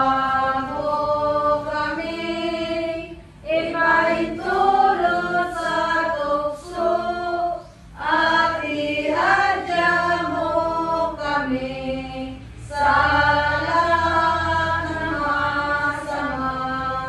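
A church congregation singing a sung prayer of the Mass together, voices without instruments, in long held phrases with a short breath every four seconds or so.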